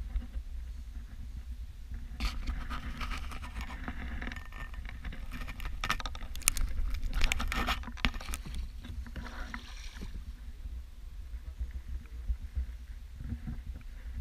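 Kayak paddle strokes splashing and water sloshing along the hull, busiest from about two to ten seconds in, under a steady low rumble.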